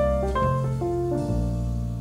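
Background piano music: slow, held chords over sustained bass notes, the harmony changing a couple of times.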